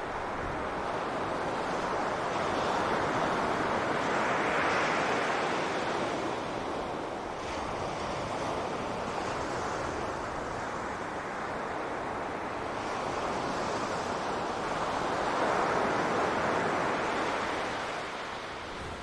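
Ocean waves breaking and washing up on a beach, the surf swelling twice, about ten seconds apart, with wind noise on the microphone.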